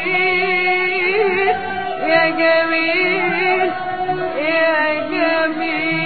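Classic Egyptian orchestral song recording: long held, wavering melody lines in an Arabic orchestra, with singing.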